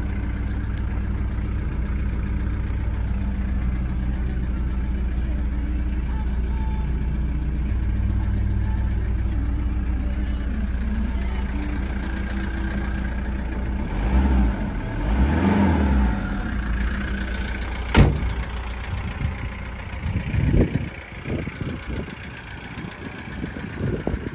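Volkswagen T4 van engine idling steadily, a low even hum, with one sharp bang about eighteen seconds in and scattered knocks after it.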